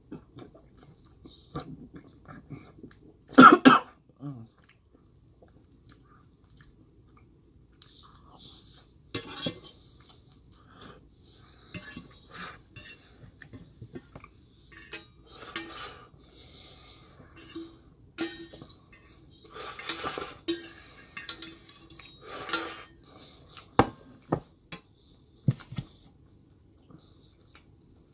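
A metal spoon scraping and clinking against a stainless steel plate while eating, with chewing in between. A loud cough about three and a half seconds in, and a few sharp metal clinks near the end.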